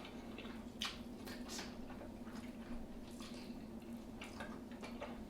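Faint wet eating sounds: scattered smacks and clicks of someone chewing saucy seafood, over a steady low hum.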